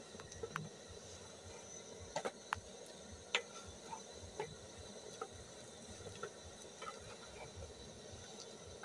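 Wooden cooking stick knocking and scraping against an aluminium pot while stiff ugali dough is stirred and pressed: irregular short knocks, a few louder ones about two to three and a half seconds in, over a faint steady high whine.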